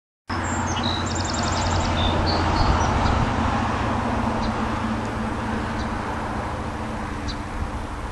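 A steady low engine drone with a wash of outdoor wind-like noise, starting abruptly a moment in; birds chirp and trill briefly about a second in.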